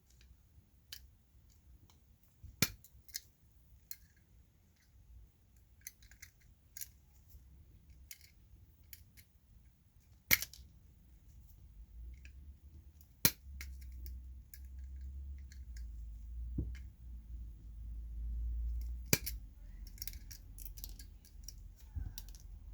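Scattered sharp clicks and snips of small hand tools and metal and plastic parts on a 1:64 die-cast toy car being taken apart for a wheel swap, with four much louder snaps and a low handling rumble through the second half.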